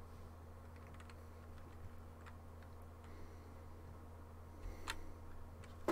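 Quiet room tone: a low steady hum with a few faint, scattered clicks, the clearest near the end.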